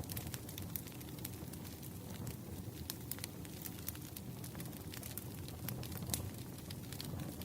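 Firewood burning: irregular sharp crackles and pops over a low, steady noise from the fire.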